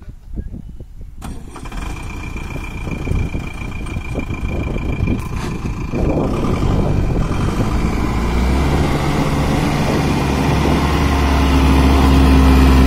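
Diesel engine of a Tata tipper truck starting up about a second in and running, growing louder, then settling into a steady low drone for the last several seconds.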